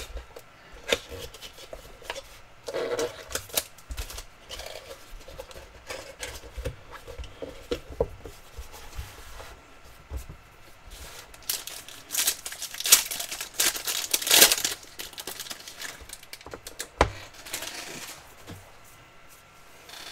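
A cardboard trading-card box being opened and handled: rustling, scraping and tearing of the packaging in short irregular bursts, loudest about two-thirds of the way through.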